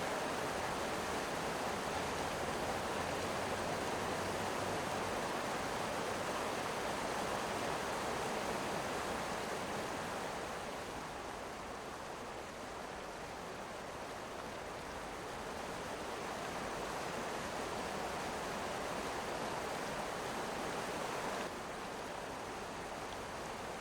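Mountain river rushing: a steady noise of flowing water that dips slightly about halfway through and drops abruptly a little before the end.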